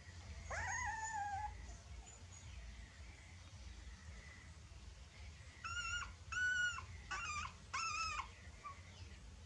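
Young puppies whimpering: one long whine that rises then falls about half a second in, then four short high whines in quick succession near the end.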